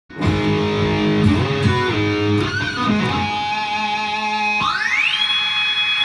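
Intro music led by guitar: a short run of notes, then a note that slides upward about four and a half seconds in and is held.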